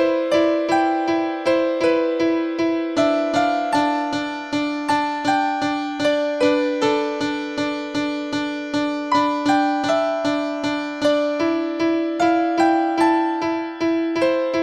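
Background music: a simple, evenly paced keyboard-like tune, about three notes a second, over a steadily repeated low note.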